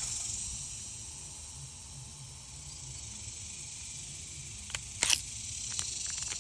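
Steady high hiss in the background, with a faint click and then a sharp metallic clack about five seconds in, followed by a few small clicks. These are handling sounds from the suppressed PSA Dagger 9mm pistol after a shot that failed to cycle the slide.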